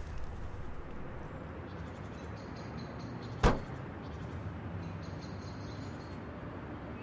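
One sharp bang from the car's body about three and a half seconds in, over steady outdoor background noise with a low rumble.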